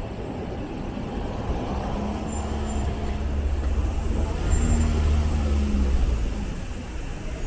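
Road traffic with a heavy vehicle's engine running close by. Its low hum swells about two seconds in and fades away after about six.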